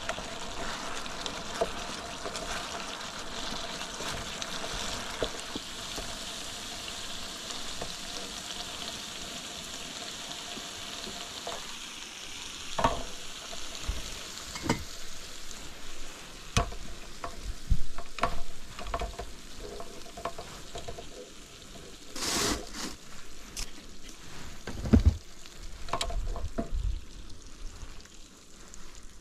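Food sizzling in a pan, fading out after about twelve seconds, followed by scattered clinks and knocks of cookware and utensils.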